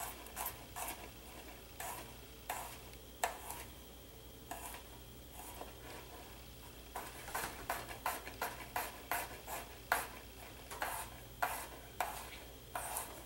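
Chef's knife slicing peeled garlic cloves on a wooden cutting board: irregular taps of the blade on the board, a few at first, then coming faster, several a second, from about halfway through.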